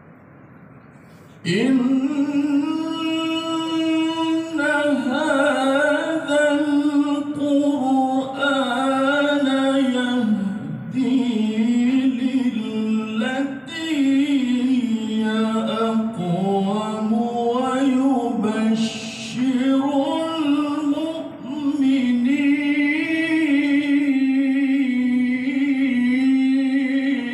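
A man reciting the Quran in the melodic tilawah style into a microphone, holding long ornamented notes, with short breaths between phrases. It begins about one and a half seconds in.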